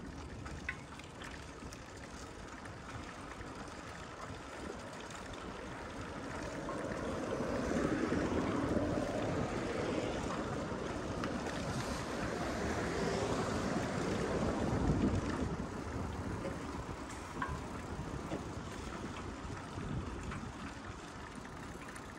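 Rushing street noise heard from a moving bicycle: wind on the microphone mixed with road and traffic noise, swelling for several seconds in the middle, with a few light clicks.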